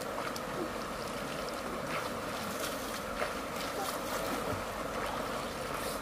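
Shallow stream running over rocks: a steady rush of water, with a few light splashes from a person swimming in it.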